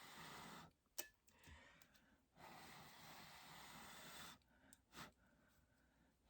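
Faint breath blown through a drinking straw onto wet acrylic paint: two soft rushes of air, with a couple of small clicks between them.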